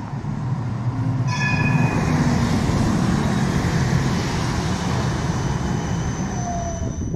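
Amsterdam tram running on street track: a steady rumble, with a brief high ringing tone a little over a second in and a faint high whine later on.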